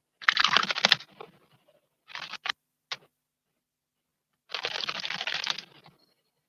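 A small bird bathing in a stone water basin, splashing and fluttering its wings in rapid pattering bursts: a burst of about a second, two short splashes, then a longer burst of over a second.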